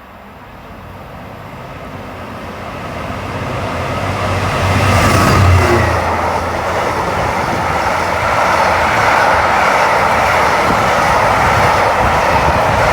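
Class 66 diesel locomotive hauling a heavy freight train through the station. The noise builds as it approaches and peaks about five and a half seconds in as the locomotive passes, then carries on as a steady rush of the wagons rolling by.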